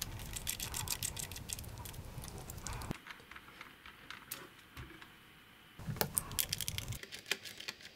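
Light clicks and scrapes of a small screwdriver backing screws out of a camcorder's plastic housing, mixed with handling noise of the camera body. A short patch of small clatter about six seconds in, as a screw is set down on the silicone mat.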